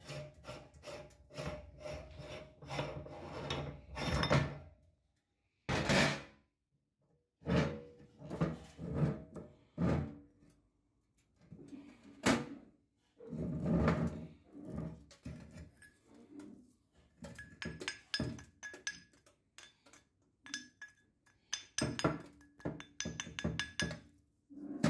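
Metal parts of a manual meat grinder being handled and taken apart: irregular knocks, clinks and scrapes as the screw ring, cutting plate and knife are removed and handled over a steel tray.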